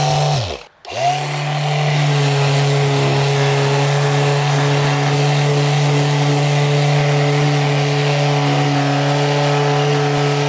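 Ryobi 18V ONE+ cordless sander starting up again about a second in, its motor pitch rising, then running steadily while sanding a timber plank.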